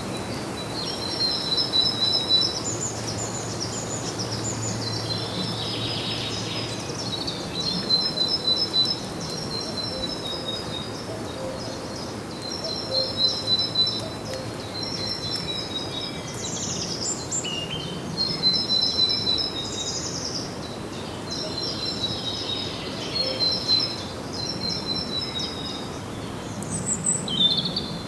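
Songbirds singing in short, high, rapidly trilled phrases, a louder bout coming about every five seconds, over a steady background hiss of outdoor ambience.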